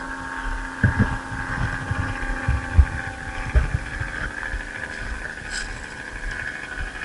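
Irregular low thumps and knocks, most of them in the first half, over a steady high-pitched hum.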